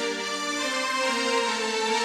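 A sampled keyboard instrument sound played live in Reason 5: sustained notes held as a chord, sliding to new notes about halfway through.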